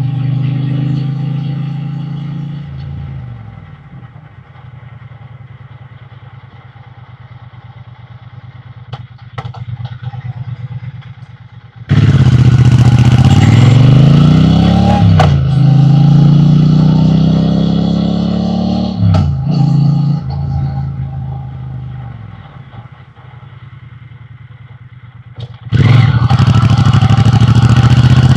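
Triumph Bonneville T120 parallel-twin engine and exhaust on the move. The engine slows and settles to a quieter steady running, then about twelve seconds in the throttle opens hard and it accelerates, the pitch climbing and dropping back at gear changes. It eases off, then opens up loudly again near the end.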